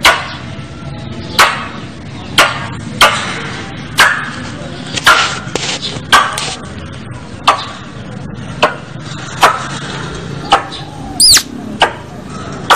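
Squirrel lure calls: a tupai's sharp chipping calls repeated about once a second, each a quick downward-sweeping note, with one higher whistled call sliding down in pitch near the end.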